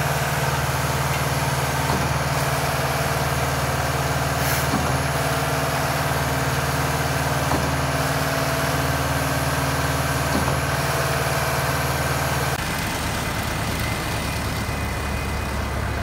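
Concrete pump truck's diesel engine running steadily while it pumps concrete through the hose, with a faint knock every two to three seconds. About three-quarters of the way through, the sound drops slightly and changes.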